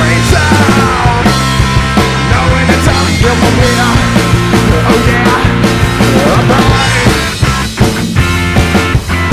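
Rock band playing live with electric guitar and a sung lead vocal; in the last couple of seconds the playing breaks into short, choppy hits.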